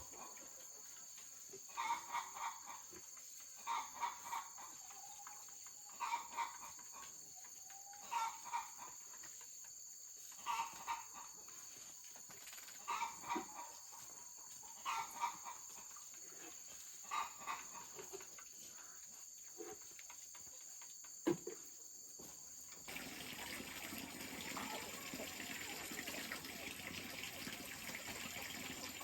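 Domestic fowl calling: a short call of two or three notes repeated about every two seconds, with steady high insect buzzing behind it. About 23 seconds in, this gives way abruptly to an even rush of running water.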